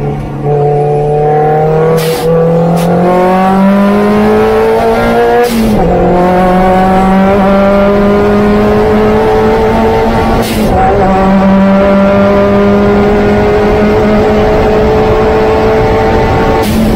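Opel Speedster's four-cylinder engine pulling hard on track, its note slowly climbing in each gear. The note drops sharply at upshifts about five and a half and ten and a half seconds in, each marked by a short crack, with further cracks about two seconds in and near the end.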